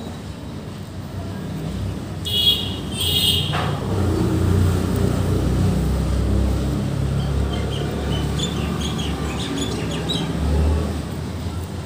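Road traffic rumbling past, the low rumble swelling from about two seconds in. Two short high-pitched toots come between two and four seconds, and faint bird chirps follow from about seven seconds.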